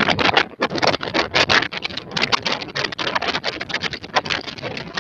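Handling noise from a handheld phone: rapid, irregular scraping and rustling close to its microphone inside a moving truck's cab.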